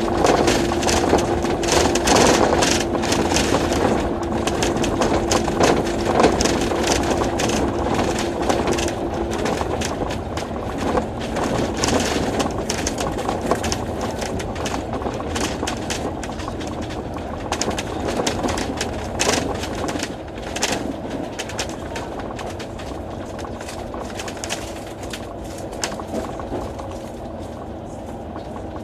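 Interior of an Alexander Dennis Enviro500 MMC double-decker bus under way: engine and road noise with frequent small rattles. A steady whine sounds for the first nine seconds or so.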